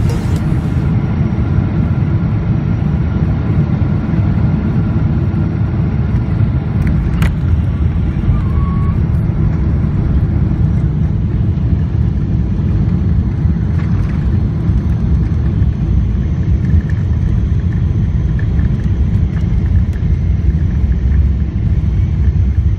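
Steady low rumble of a Boeing 777 heard from inside the cabin as the aircraft moves on the ground, with a single sharp click about seven seconds in.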